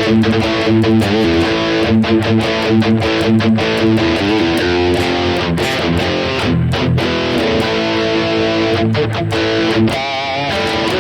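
High-gain distorted electric guitar played through a Boss GT-1000 modeling unit on a Marshall-style amp patch: riffs and held chords, with a wavering vibrato note about ten seconds in.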